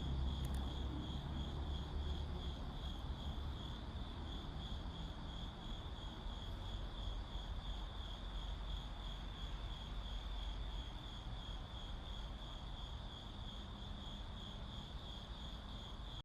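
Crickets chirping steadily in a fast, even pulsing trill, over a low rumble that is strongest at the start and slowly eases off.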